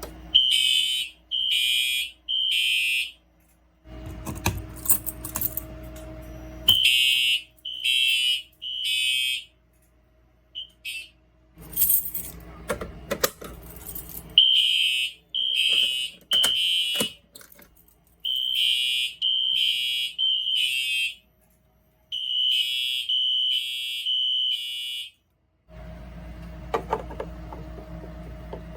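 Fire alarm horn sounding in the temporal-three evacuation pattern: groups of three loud, high beeps, five groups in all with uneven pauses between them. Handling noise and a few clicks fall in the gaps.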